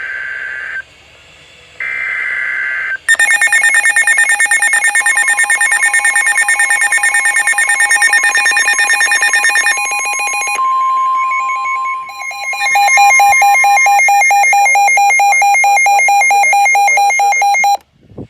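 Several NOAA weather radios sounding their alert alarms at once for a flash flood warning, loud rapidly pulsing electronic beeps with a steady 1050 Hz warning tone under them for a while. Two short beeps come first. The alarm pattern changes about ten and twelve seconds in, and everything cuts off just before the end.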